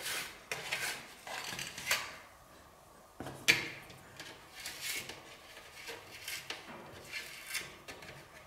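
Old foam rubber being torn and scraped off the plastic mesh front panel of a PC case: a string of short scratchy rips and rustles, with a pause about two seconds in and a sharper scrape about three and a half seconds in.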